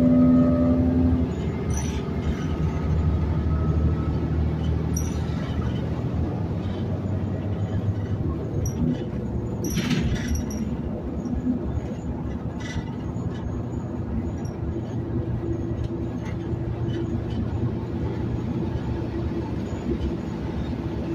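Inside a New Flyer XN60 articulated bus cruising on a road: the steady drone of its Cummins Westport ISL G natural-gas engine and ZF automatic transmission with road noise, and a few sharp rattles from the body, the loudest about ten seconds in.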